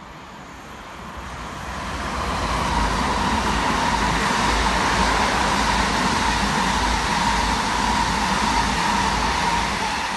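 Electric multiple-unit passenger train passing through a station at speed: the rush of the train builds over the first two seconds or so, holds loud and steady with a steady high whine running through it, then begins to fade near the end.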